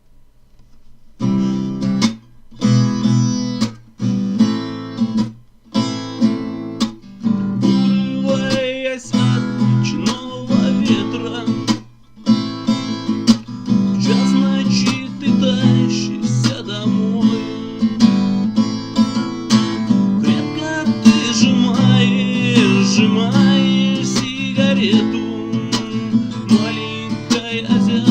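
Acoustic guitar playing an instrumental intro of strummed chords. It starts about a second in, stops briefly several times over the first twelve seconds, then goes on without a break.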